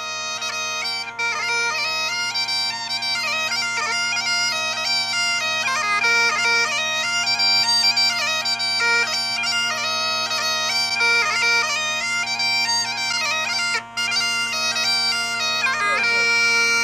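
Great Highland bagpipes playing a tune: a chanter melody with quick grace-note ornaments over steady drones, with a brief break in the sound near the end.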